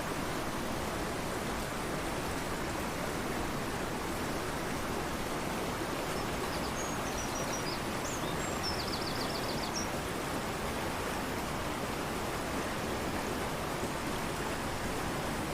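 Fast-flowing river rushing steadily, with a few faint high bird calls in the middle, including a quick trill of about a second, and another call near the end.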